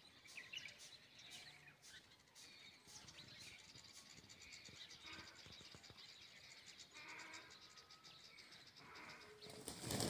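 Faint scattered small-bird chirps, then near the end a sudden loud flurry of wing flapping as two Indian peacocks fight.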